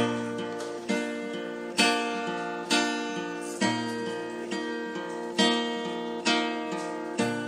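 Acoustic guitar strumming chords, a strong strum about once a second with each chord ringing out and fading before the next.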